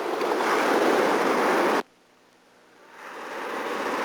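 Ocean surf and wind rushing as a steady hiss. It builds up, cuts off suddenly a little under two seconds in, then builds up again about a second later.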